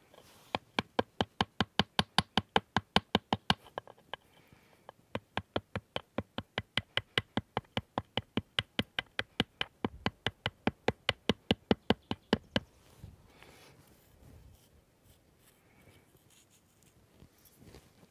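A hard stone tapping a salt rock on a sandstone slab to chip off salt: two long runs of quick, sharp taps, several a second, with a short break between them. The tapping stops about two-thirds of the way in, leaving faint scuffing.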